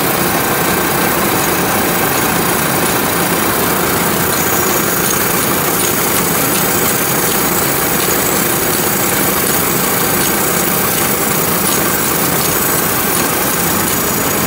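Welding-electrode coating machinery running steadily: an even, unbroken mechanical din with thin high whines over it.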